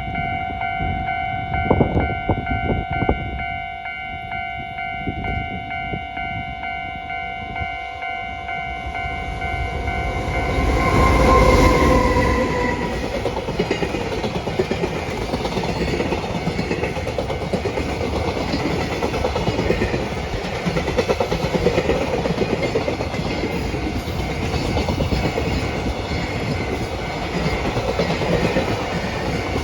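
Level crossing warning bell ringing as a JR Freight EH500 electric locomotive approaches. It sounds its horn about eleven seconds in, then a long rake of freight wagons rumbles and clatters steadily past over the rail joints.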